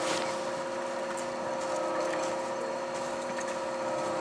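A steady mechanical hum holding several even tones over a light hiss, with a few faint ticks.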